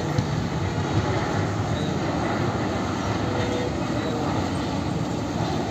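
Jet engine noise from a Boeing 737 MAX airliner on final approach, landing gear down, its turbofans at approach power, heard as a steady, even sound.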